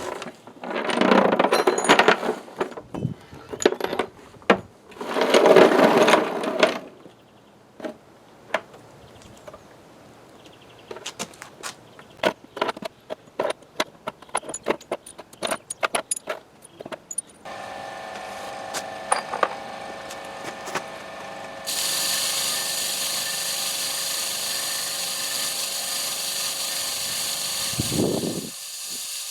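Short bursts of handling noise and clicks from parts being moved. Then an electric wire wheel motor starts with a steady hum about two-thirds of the way in. A few seconds later it begins a steady, hissing scour as the wire brush strips rust off cast iron parts.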